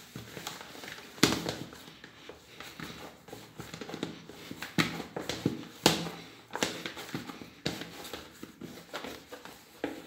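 Hands working a ball of pizza dough around a plastic mixing bowl, pressing it against the sides to pick up the stuck flour: soft handling noise broken by irregular sharp knocks and taps of the plastic bowl.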